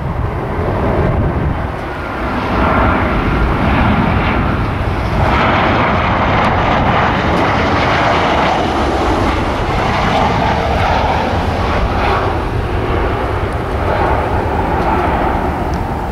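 Boeing 737 jet airliner on final approach with its landing gear down, passing low overhead: steady jet engine noise with a faint whine, louder from about two and a half seconds in.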